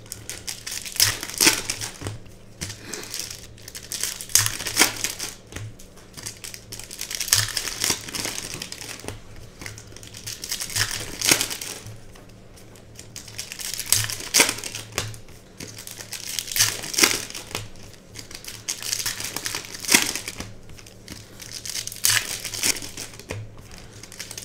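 Foil wrappers of Panini Optic basketball card packs being torn open and crinkled by hand, in irregular rustling bursts every second or two.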